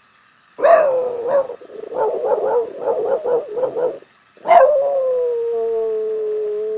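A dog howling: a short howl sliding down in pitch, then a quick run of short yodelling howl notes, about three a second, then a long howl that starts high, slides down and holds steady for a few seconds.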